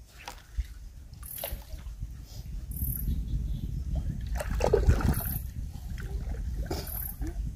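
Water trickling and sloshing, with a few short splashes every second or two over a steady low rumble.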